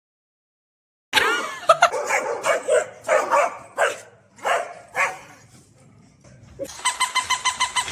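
Dog barking: about a second in comes a string of barks roughly half a second apart, then it quiets. Near the end there is a fast run of short, evenly spaced pulses.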